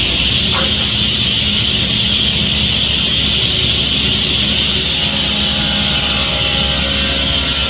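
A power tool running steadily, an even whirring drone with a strong hiss that holds level throughout.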